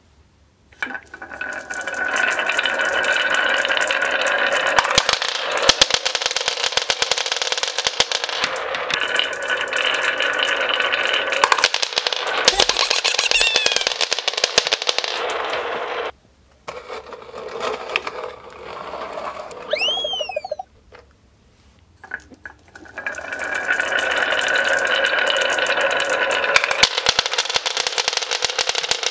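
Dozens of marbles rattling down a wavy-grooved HABA wooden chute and clattering onto a wooden floor, a dense continuous clatter. It breaks off about halfway through, returns briefly, then resumes as a second long run with a new batch.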